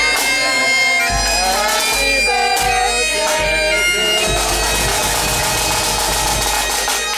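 A pipe band playing: bagpipes carrying a tune over a steady drone, with bass drum and snare beats.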